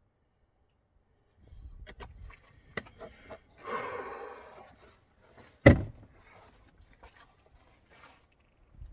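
Handling noise from gear being moved about: light knocks and clicks, a scrape lasting about a second, and one sharp, loud knock a little past halfway.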